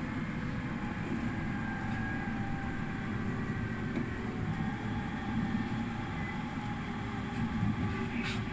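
Electric train running along the line, heard from inside the front of the train: a steady rumble of wheels on rail with faint whining tones above it, and a sharp click near the end.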